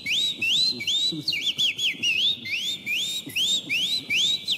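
Whistling: a run of quick rising notes, about two to three a second.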